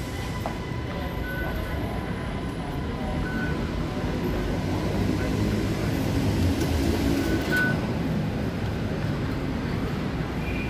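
Low rumble of a metro station concourse, swelling through the middle. Short high electronic beeps sound now and then, the loudest a little over two-thirds in, as a card is tapped on the fare-gate reader.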